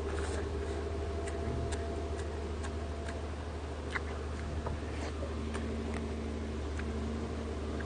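Eating sounds: scattered sharp clicks from chewing and from chopsticks picking food out of a metal stew pot, irregularly spaced, over a steady low hum.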